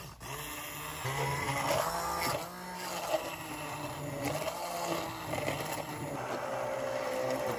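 Immersion blender running in a pot of chunky vegetable soup, its motor humming steadily as the blade purées the vegetables.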